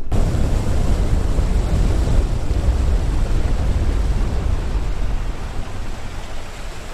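Wind buffeting the microphone over the rush of water around a moving boat: a loud, even rumble that starts suddenly and eases a little near the end.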